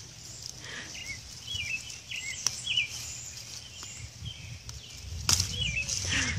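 Leaves rustling and a few sharp clicks as baby raccoons grab at a leafy branch held out to them, with short high chirps now and then.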